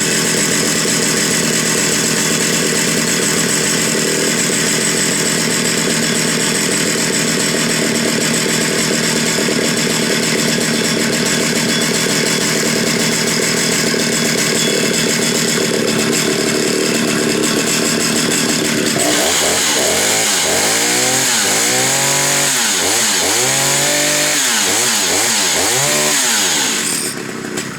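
Stihl 076 two-stroke chainsaw (111 cc) running steadily at high speed. About two-thirds of the way through it is revved up and down roughly once a second, then cuts off abruptly near the end.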